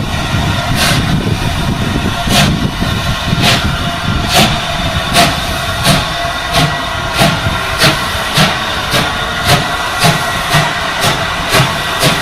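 Exhaust beats of a South African Railways Class 24 2-8-4 steam locomotive pulling away, the chuffs coming closer together as it gathers speed, from about one every second and a half to about two a second.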